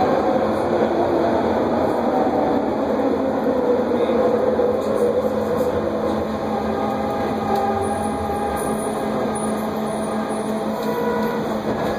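Vancouver SkyTrain car heard from inside, running on the elevated guideway and slowing as it pulls into a station: a steady rolling rumble with faint whining tones, easing off slightly toward the end.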